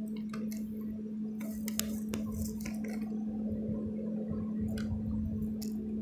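A locomotive running: a steady hum holds on one pitch throughout. A few short clicks and squeaks sound over it, bunched about one and a half to two seconds in and again near the end.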